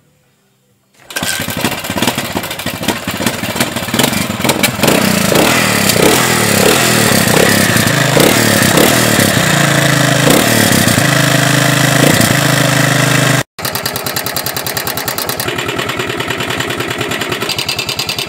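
Motorcycle engine kick-started, catching about a second in and running loudly, revved up and down several times. After a short break it idles with a fast, even putter.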